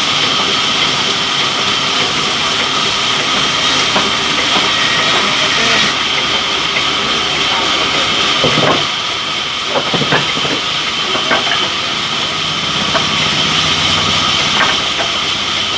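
Sawmill saw machinery running steadily with a constant high whine, and a few sharp knocks near the middle.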